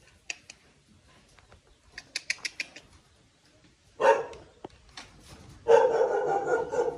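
A dog barking off and on: one bark about four seconds in and a longer run of barking near the end, with a quick run of light clicks about two seconds in.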